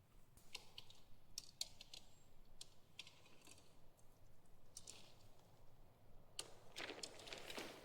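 Faint, irregular clicks and light rattles of tent gear being handled during tent pitching, with a short rustle of material about six and a half seconds in.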